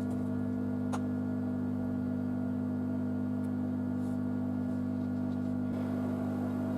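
Steady, even hum of a hot-air rework gun's blower running while it heats the board to desolder a power-supply controller chip. A single faint click about a second in.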